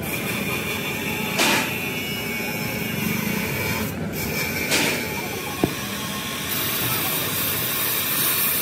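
Steady hissing machine noise, with two short knocks and one sharp click about halfway through.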